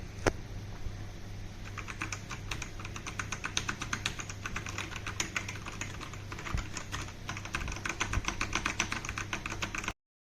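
Typing on a DEKAY98 PRO wireless mechanical keyboard: one sharp key click right at the start, then a fast, continuous run of key clicks from about two seconds in. The sound cuts off abruptly near the end.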